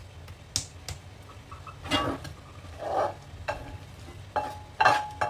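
A spatula scraping and knocking in a metal frying pan as fried instant noodles are scooped out into a bowl, in a series of short, irregular scrapes and taps.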